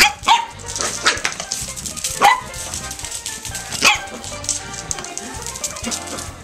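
A Pembroke Welsh Corgi puppy barking about five times in short, high, excited barks as it herds a Swiffer mop, over background music.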